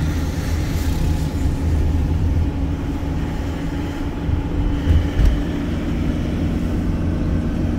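Motorhome driving along a road, heard from inside the cab: a steady low engine drone with road noise. A couple of low thumps come about five seconds in.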